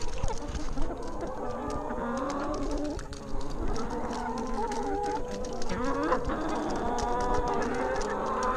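A flock of chickens clucking and calling over one another, with a rising squawk about six seconds in.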